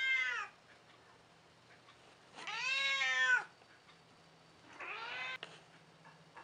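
Elderly domestic cat meowing: the tail of one meow at the start, then a long, loud meow about two and a half seconds in and a shorter one around five seconds. Each meow rises and then falls in pitch.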